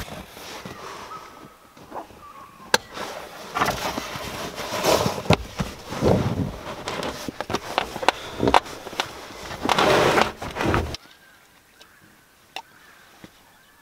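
A canvas swag being rolled up and strapped on an aluminium ute tray: rustling canvas, scraping and repeated knocks and clicks for about eleven seconds. It then goes quiet, with faint bird calls.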